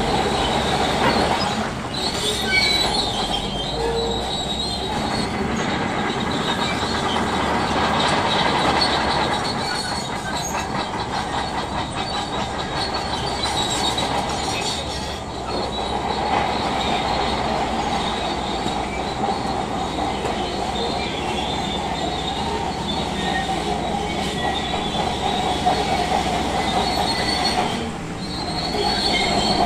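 Crawler bulldozer working: its steel tracks squeal and clank steadily over the running engine, with a few short lulls.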